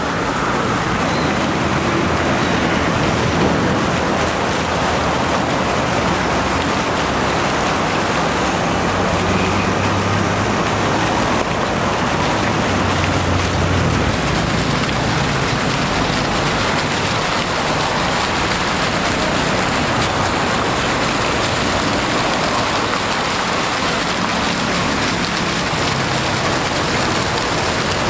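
Fountain water jets splashing steadily into a shallow pool, a constant rushing hiss.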